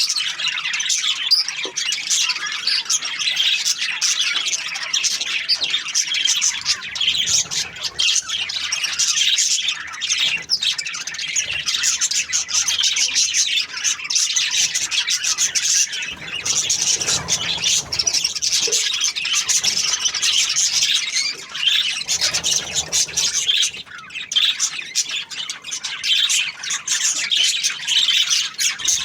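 Budgerigars (parakeets) chirping and chattering without pause, a dense run of quick high chirps and squawks.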